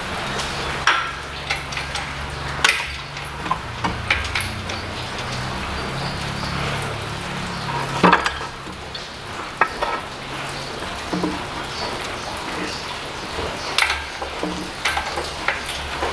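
Supercharger and intake manifold assembly of a 2012 Range Rover Sport 5.0, hung from a crane, being rocked and shifted by hand to work it free: scattered clicks and light knocks of metal and plastic, the sharpest about eight seconds in, over a steady low hum.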